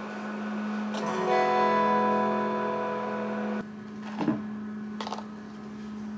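Background music with guitar chords, cutting off abruptly a little past halfway; after it a steady low hum and a few light knocks are left.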